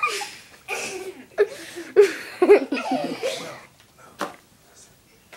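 Kids giggling and snickering in several breathy, stifled bursts over about three and a half seconds, with one short snicker a little later.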